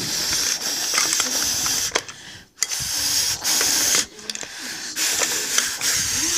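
Hissing, blown whooshes imitating wind, in three long bursts with short breaks between.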